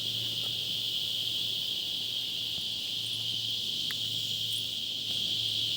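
Steady, high-pitched chorus of insects droning without a break, with a faint low hum underneath.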